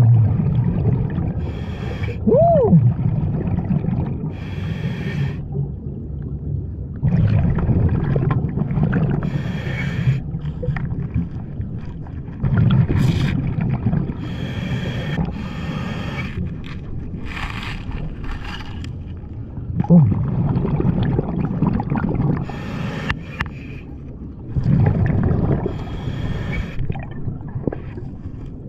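Scuba diver breathing through a regulator underwater: hissing inhales alternate with bubbling, rumbling exhales, one breath every few seconds. A brief squeaky tone sounds about two seconds in.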